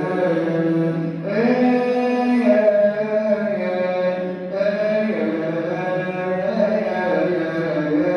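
Melismatic Coptic liturgical chant: a priest's voice holding long notes that step up and down in pitch, over a steady low drone.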